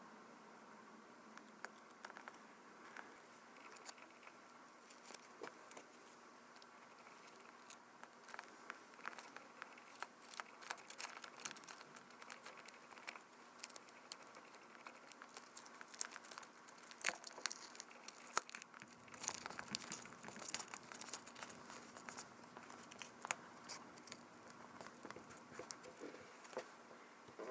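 Many small irregular clicks, taps and crinkling rustles of close hand work on a disassembled compact digital camera, growing busier partway through.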